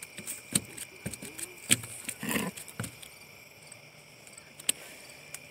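A bluegill flopping on wooden dock boards and being grabbed by hand: a handful of sharp slaps and knocks spread over a few seconds, with a short scuffle in the middle.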